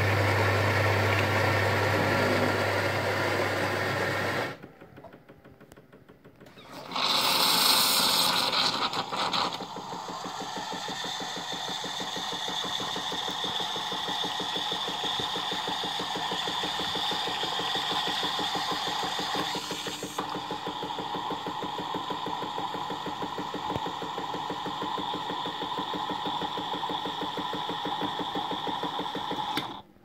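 Jura Giga X3 bean-to-cup coffee machine making a cappuccino. Its ceramic disc grinder runs for about four seconds, then after a short lull comes a loud hissing burst lasting a couple of seconds. Then a long steady stretch of fast pulsing machine noise follows as frothed milk spurts from the twin spouts into the cup.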